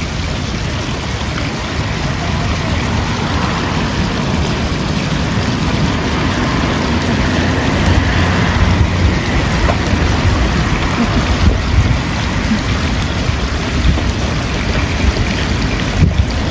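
Wind buffeting the microphone, a steady, uneven low rush, over a hiss of splashing water in a shallow wading pool.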